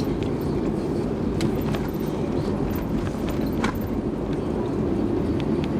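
Steady road and engine noise inside a car's cabin while driving, with a few faint clicks.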